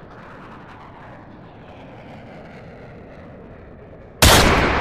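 A steady, even rumble, then near the end a sudden, very loud bang that rings on and fades slowly.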